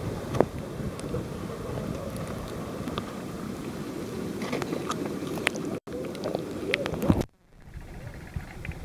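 Wind and surf noise on a waterproof Panasonic Lumix DMC-TS2 camera's microphone, with scattered handling clicks as the camera is moved down over seaweed-covered rock. About seven seconds in, the sound drops sharply and turns dull and muffled as the camera goes under the tide-pool water.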